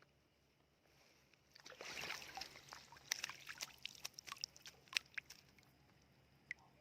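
Shallow water being disturbed: a short sloshing rush, then a quick run of small splashes and clicks, and one more near the end.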